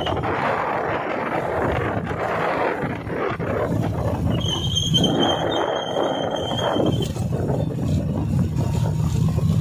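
Steady street traffic noise, a continuous rumble of passing vehicles. About halfway through, a thin high-pitched tone holds for two or three seconds.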